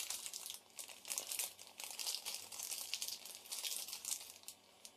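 Clear plastic zip bags crinkling and rustling in irregular crackles as they are handled, with a brief lull under a second in and a fade just before the end.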